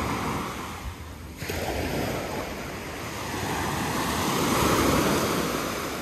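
Small sea waves breaking and washing up a sandy beach: a short wash at the start, then a longer surge that swells to its loudest near the end and eases off.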